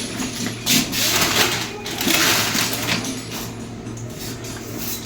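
Spare motorcycle parts being handled, an uneven rustling and clattering, over a faint steady low hum.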